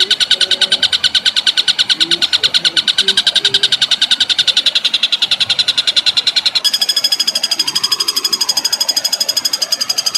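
Songbird rapid rolling trill ('tembakan'), about a dozen short notes a second repeated at an even pace. About two-thirds of the way through the trill switches to a different, higher note.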